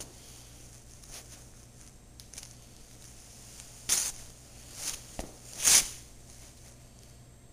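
Adidas Ciero sneakers' rubber soles scuffing and shifting on a smooth concrete floor: a few short scrapes clustered past the middle, the loudest a little before the end, over low room hiss.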